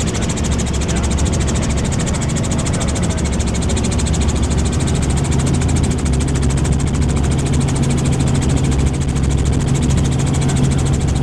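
Helicopter in flight, its engine and rotor running steadily, heard from aboard; a steady low hum joins about halfway through.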